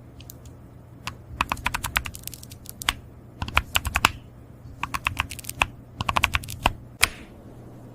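Typing on a computer keyboard: quick runs of key clicks in several bursts with short pauses between them, over a steady low hum.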